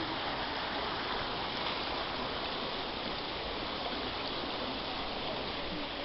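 Steady rush of water from a waterfall, an even hiss-like roar with no pauses.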